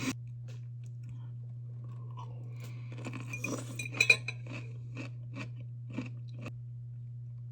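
Chewing a crunchy dill pickle, with scattered clicks and clinks, most of them packed together about three to four seconds in, over a steady low hum.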